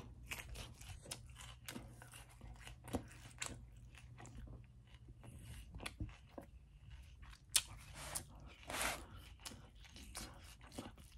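A person chewing a mouthful of Caesar salad with croutons: faint, irregular crunching clicks as the croutons and lettuce are chewed, with a short louder rush of noise about nine seconds in.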